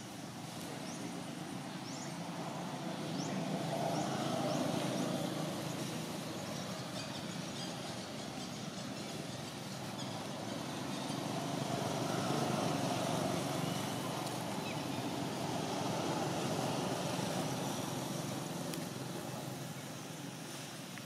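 Road traffic going by in the background: a steady rumble that swells and fades about three times as vehicles pass.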